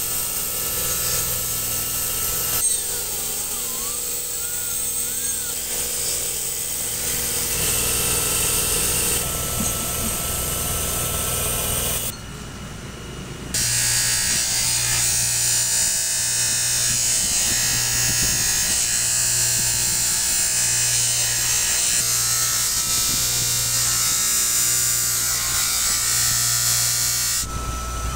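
Workshop power tools running, in several short clips cut one after another, each with its own steady machine noise and whine.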